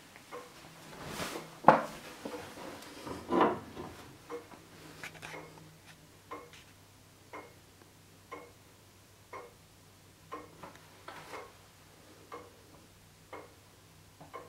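Dent astronomical regulator longcase clock ticking about once a second, the beat of its deadbeat escapement with red sapphire pallets. In the first few seconds there are rustles and a couple of knocks from handling, the loudest a sharp knock just under two seconds in.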